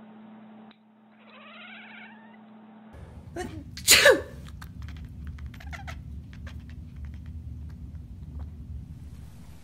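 A cat gives a short meow about a second in, then sneezes once, sharply and loudly, about four seconds in; a few faint ticks follow.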